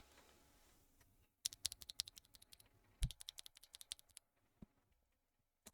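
A bare Leobog Reaper linear mechanical keyboard switch, with no keycap, pressed repeatedly by hand: two quick runs of light clicks, about ten a second, and one more click a little later.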